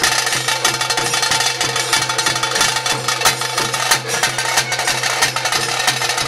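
Loud traditional ritual music driven by fast, dense drumming, with a steady low hum underneath.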